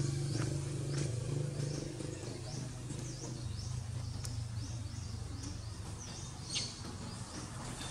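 Forest ambience with a bird giving short, high chirps over and over, about two a second, above a low steady hum that fades out midway. A single sharp click sounds near the end.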